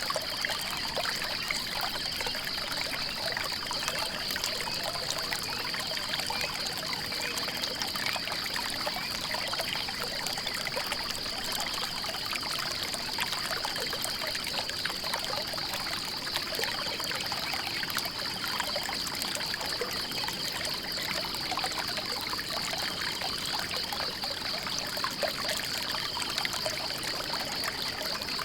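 Water trickling and pouring in a small stream, steady throughout, with a constant high-pitched trill above it and a faint short note repeating about every one and a half seconds.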